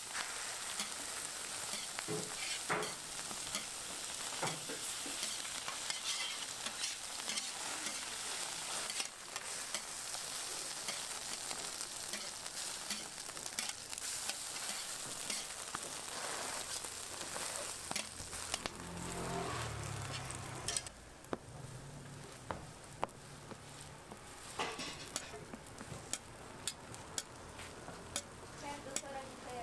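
Egg patties with shredded cabbage and carrot sizzling on a flat steel griddle, with a metal spatula and tongs clicking and scraping on the steel as they are turned. About two-thirds of the way through, the sizzle grows quieter.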